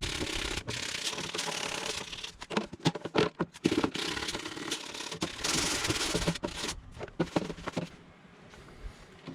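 Sandpaper rubbed by hand over a wooden box surface in long scraping strokes, in two spells broken by short knocks and handling clicks, fading near the end.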